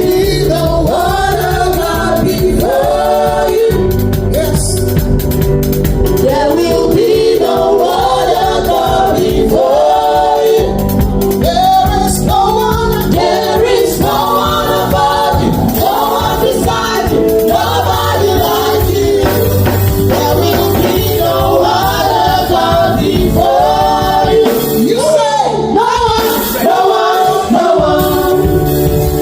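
Gospel worship song with a group of singers and a backing band, loud and continuous.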